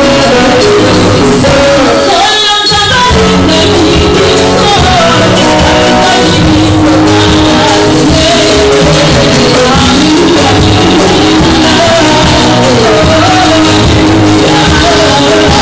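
Live gospel band: a woman singing lead with backing singers, over drum kit, guitar and keyboard, played loud through the hall's PA.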